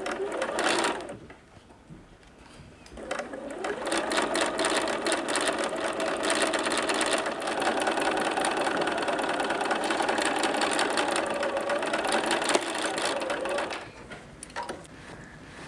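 Bernina sewing machine stitching a seam: it runs for about a second, pauses briefly, then runs steadily for about ten seconds and stops near the end.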